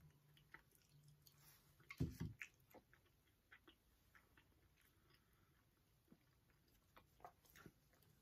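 Faint close-up chewing of cookies, with small scattered mouth clicks. A louder low thump comes about two seconds in.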